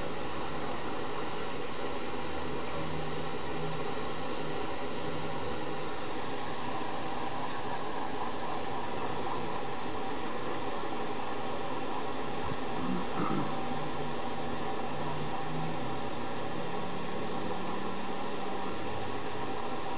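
Steady hiss of steam escaping from the standing Somerset & Dorset 7F 2-8-0 steam locomotive 53808, with a brief clank about two-thirds of the way through.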